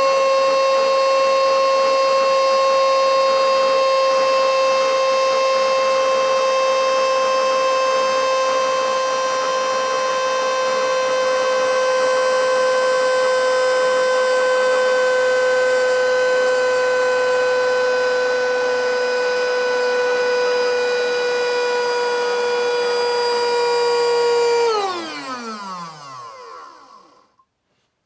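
Battery-powered mini handheld vacuum cleaner (XCQ-508) running with a loud, high-pitched whine that sags slowly in pitch as its battery runs flat. Near the end the motor cuts out and spins down, its whine falling quickly to silence: the battery is exhausted.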